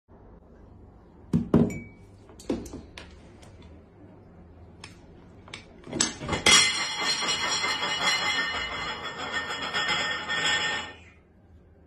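Cutlery and crockery clinking several times, then a knife grating and squealing against a plate as food is cut, for about four and a half seconds before it stops suddenly.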